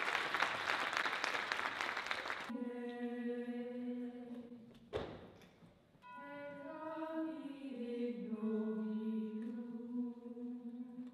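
Audience applause for about two seconds, then a group of voices singing a slow chant in long held notes that shift pitch in steps, with a single sharp knock about five seconds in.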